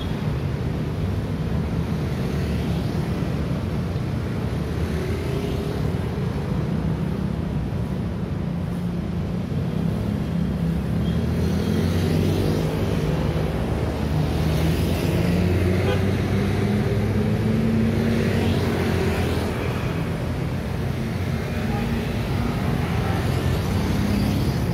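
Steady passing road traffic: cars and SUVs going by with continuous engine and tyre noise. A city bus pulls past about halfway through, when the engine hum is at its loudest, and motorcycles pass near the end.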